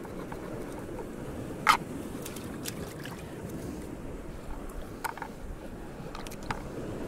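A few sharp clicks and knocks of a knife and garfish being handled on a plastic chopping board, the loudest about two seconds in and the rest fainter, over a steady low wash of the sea.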